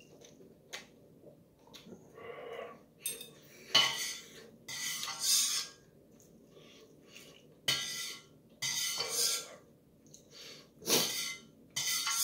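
Metal chopsticks scraping and clinking against a stainless steel pot and a ceramic bowl as ramyeon noodles are lifted out, in a series of short bursts.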